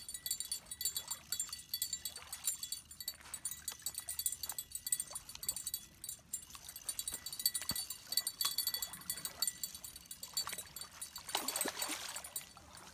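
Fishing reel's drag giving out line in rapid, irregular clicks as a hooked striped bass runs with it.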